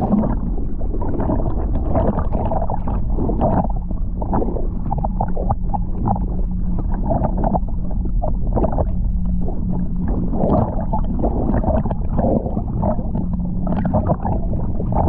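Muffled gurgling and sloshing of water heard with the microphone under the surface, dotted with irregular knocks, over a steady low hum.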